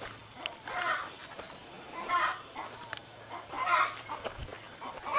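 Chickens clucking, with a short call about every second and a half.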